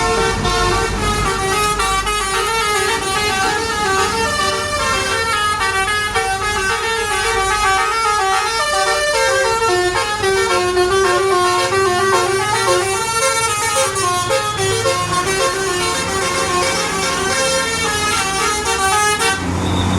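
Telolet musical bus horn playing a fast melody of stepped tones that cuts off abruptly just before the end.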